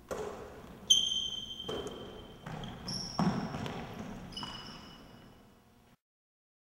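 Basketball bouncing and being passed and caught on a hardwood gym court: about six sharp knocks, several followed by a high thin ringing tone, each fading slowly in the hall's echo. The sound cuts off abruptly about six seconds in.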